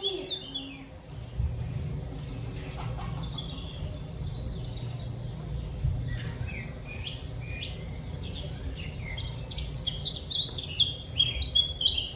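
Small birds chirping and twittering, with many quick high chirps that grow busier near the end, over a steady low rumble.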